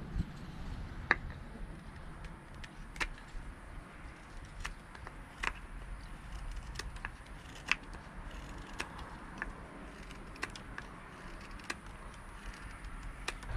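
A carving knife taking cuts off a birch spoon blank, a dozen or so short, sharp clicks at irregular intervals as the blade slices through the wood, over a low steady rumble.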